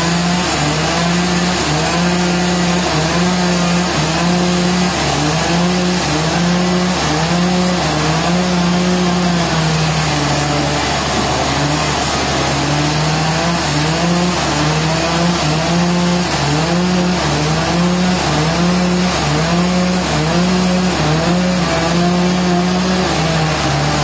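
Large band sawmill running and sawing through a trembesi (rain tree) root slab: a loud, steady mechanical hum whose pitch rises and falls about once a second.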